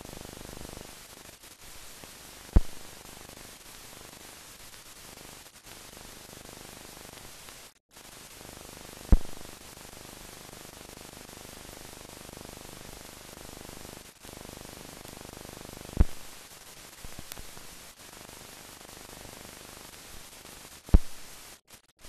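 Steady hiss of an old film soundtrack with no other sound, broken by four sharp pops several seconds apart and two brief dropouts to silence, one about eight seconds in and one near the end.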